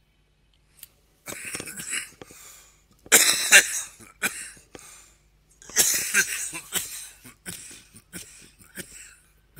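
A person coughing in a fit: three hard bouts of coughs starting about a second in, followed by shorter, weaker coughs and throat clearing.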